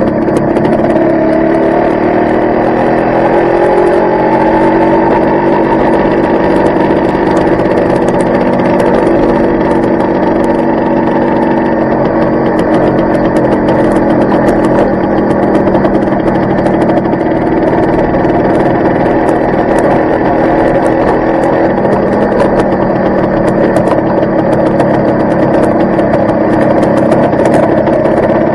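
Yamaha RS100T's 100cc single-cylinder two-stroke engine running steadily as the motorcycle is ridden, its pitch shifting a little a few seconds in.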